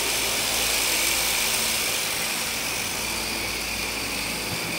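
Blast V1 coaxial electric RC helicopter hovering, its small electric motors and twin counter-rotating main rotors giving a steady high-pitched whir.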